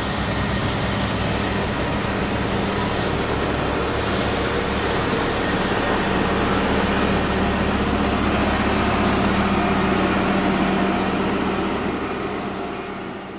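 Komatsu GD555 motor grader's six-cylinder diesel engine running steadily under load as the blade grades gravel, a constant low hum over broad mechanical noise that fades out near the end.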